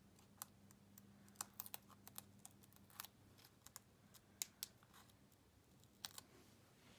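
Faint, irregular small clicks and ticks of fingernails picking at and peeling the paper backings off foam adhesive dots (dimensionals) on a piece of cardstock.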